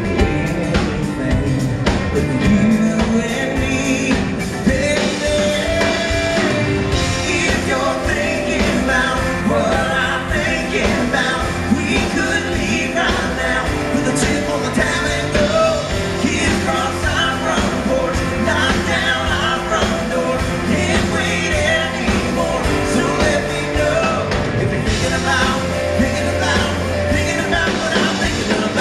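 Live country-rock band playing a song with lead and harmony vocals over electric and acoustic guitars, keyboards and bass, heard through the PA from the audience.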